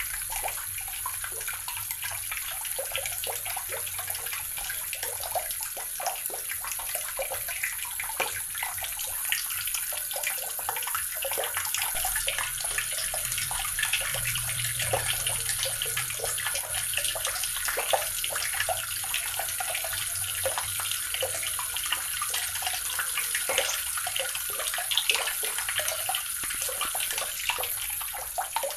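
Water running steadily from a tap, a constant splashing stream with small irregular spatters.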